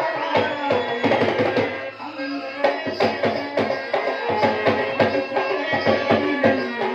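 Stage-play music: hand drums struck in a quick, busy rhythm under held melodic notes.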